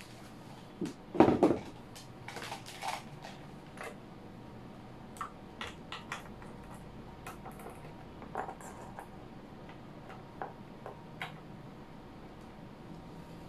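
Handling noise at a radio studio desk: a louder thump about a second in, then scattered small clicks and knocks over a faint steady hum.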